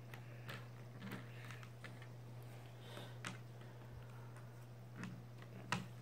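Light plastic clicks and knocks of toy train track pieces being handled and fitted together on a wooden table, scattered and irregular, the sharpest near the end, over a steady low hum.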